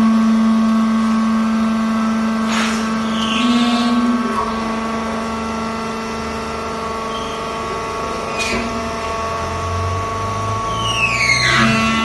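Vertical hydraulic baler's power unit running, its pump and motor giving a steady whine that comes on suddenly louder at the start. A couple of short clicks fall in the middle, and near the end the pitch shifts and glides.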